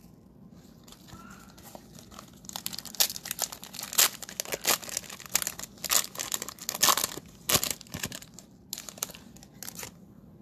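Cellophane wrapper of a 2019-20 Panini Mosaic NBA cello pack crinkling and tearing as the pack is opened: a dense run of sharp crackles from about two and a half seconds in, thinning out after about eight seconds.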